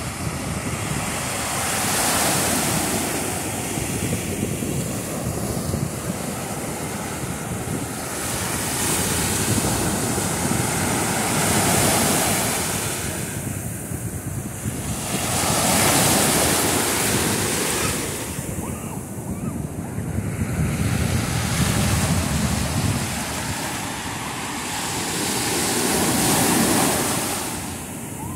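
Ocean surf breaking and washing up a sandy shore, the wash swelling and easing every few seconds as each wave comes in, with wind noise on the microphone.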